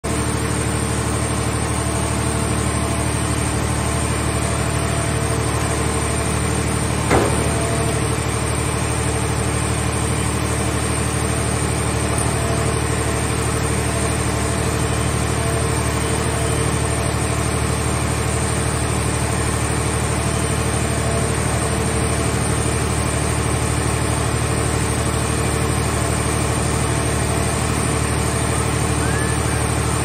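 Heavy hydraulic machinery (the car-shell baler and its grab loader) running steadily, a low drone with a constant hum. A single sharp clank comes about seven seconds in.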